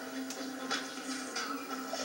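A film soundtrack playing through a television's speaker: background music with a few short, sharp sounds over it.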